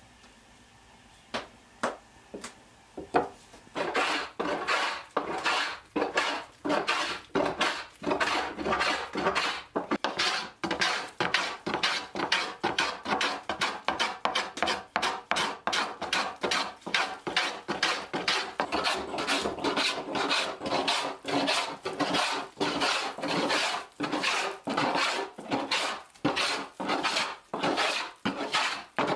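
A few light knocks as a wooden hand plane is handled. After about four seconds, quick, even strokes of the plane shaving a pine board follow, about two rasping swishes a second.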